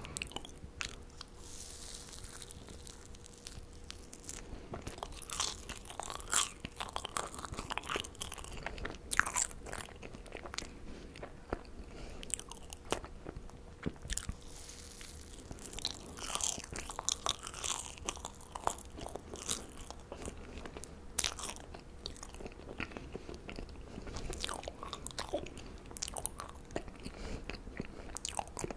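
Marshmallows being bitten and chewed close to the microphone: irregular wet clicks and mouth smacks.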